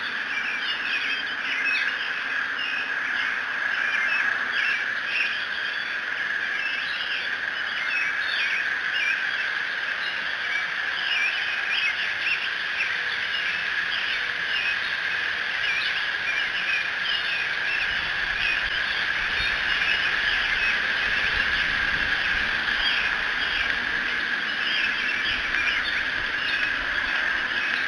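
Dawn chorus of many small songbirds chirping and singing continuously over a steady high hum. A low rumble comes in about two-thirds of the way through.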